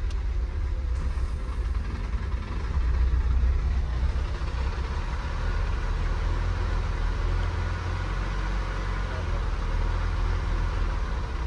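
Nissan Sentra engine idling unevenly, the idle swelling a little and dropping back rather than holding steady: a hunting idle, which the owner puts down to a damaged airflow sensor with a broken sensing wire.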